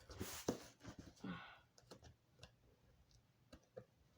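Faint rustling and scattered small clicks of hands working at a cardboard box to get it open, busiest in the first second and a half.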